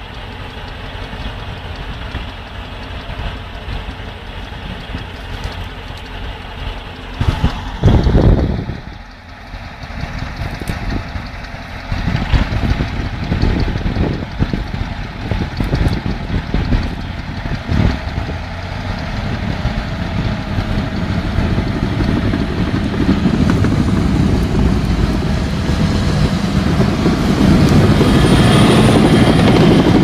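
Heavy diesel engines of earth-moving machines running steadily, with a loud low thump about eight seconds in; the engine noise grows louder over the last few seconds.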